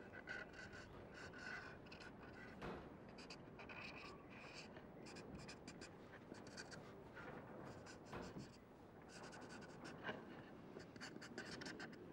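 Faint scratching of a pen on paper on a drawing board: quick, short sketching strokes in irregular runs.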